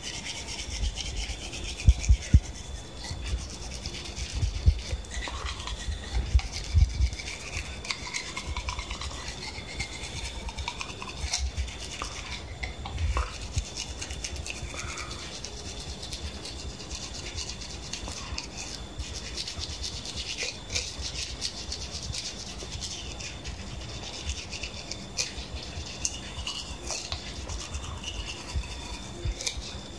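Manual toothbrush brushing teeth, a continuous scrubbing of bristles in the mouth, with a few low thumps in the first half.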